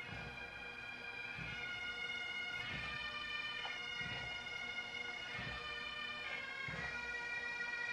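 Bagpipes playing a slow tune, held notes over a steady drone, with a soft low thump about every second and a quarter.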